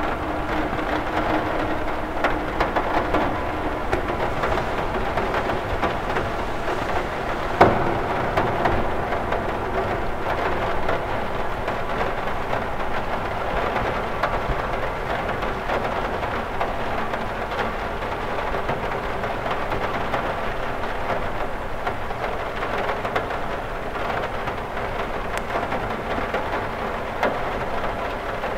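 Rain falling steadily on a cathedral window, an even hiss of drops, with one louder sharp tap about seven and a half seconds in.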